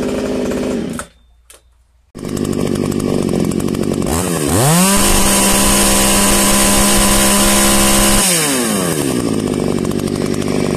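Modified Alpina Prof 45 two-stroke chainsaw idling, with a short break about a second in; about four seconds in it is revved up with no load to full throttle, held there steadily for about four seconds, then drops back to idle.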